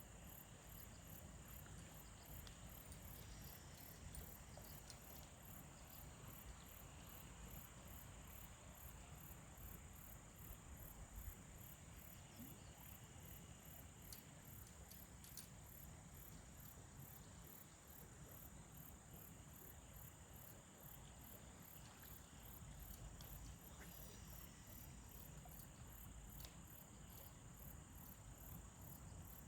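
Faint chorus of crickets chirping in a fast, even pulse, with a steady high insect trill beneath it and a low rumble underneath.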